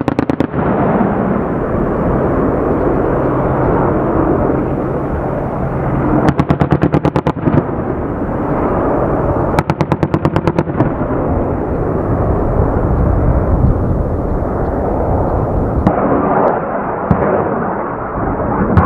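AH-64E Apache helicopter's steady rotor and turbine noise, cut through twice by bursts of its 30mm cannon: rapid, evenly spaced shots, each burst lasting about a second, the first about six seconds in and the second about ten seconds in.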